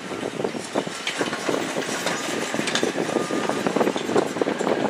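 A car driving, its road and tyre noise heard from inside the cabin, with many irregular small clicks and rattles.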